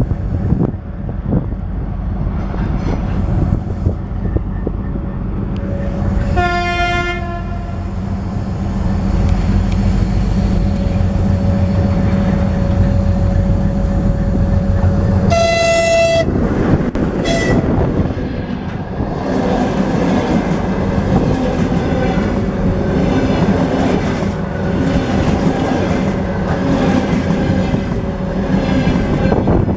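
Diesel freight locomotive passing with a steady engine drone. Its horn sounds twice, about 6 and 15 seconds in, the second blast higher in pitch. From about 18 seconds on, freight wagons roll past, their wheels clacking over rail joints with some squealing.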